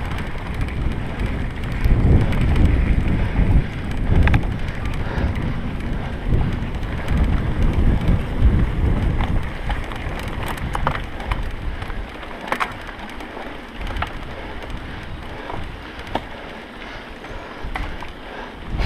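Mountain bike riding fast over a dirt trail, heard from a camera on the rider: wind buffets the microphone with a heavy rumble through the first half, easing after about twelve seconds, while the tyres run on dirt and the bike rattles with sharp clicks over bumps.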